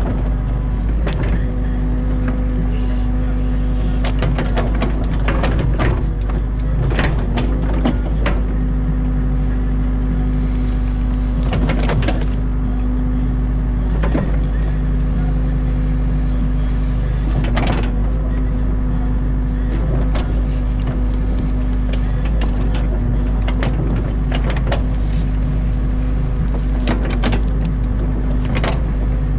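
Mini excavator's diesel engine running steadily, heard from the cab, with irregular knocks and clicks from the arm and bucket as it pushes and spreads wet mud.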